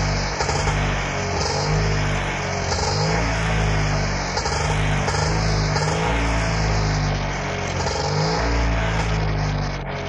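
Auto rickshaw's small engine running and revving, its pitch shifting up and down several times.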